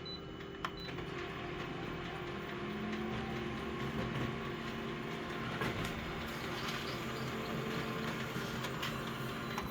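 Photocopier running through a copy: a steady mechanical whir with a hum that comes in about two seconds in, and a few light clicks.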